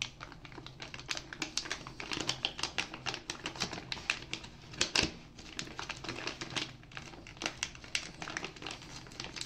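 Scissors snipping across the top of a plastic dry cat food bag, a quick irregular run of short snips with the bag crinkling as it is cut open.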